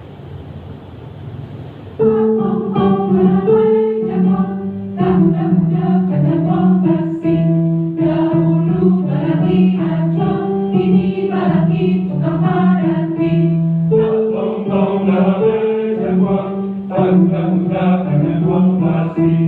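Mixed choir singing a medley of Minangkabau songs, coming in suddenly about two seconds in after a faint hiss, with rhythmic upper lines over a held low part.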